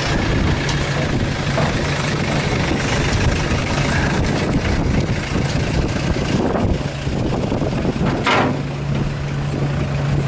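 Engine idling steadily with a constant hum on a small roll-on roll-off car ferry, while a van drives off the deck down the ferry's ramp.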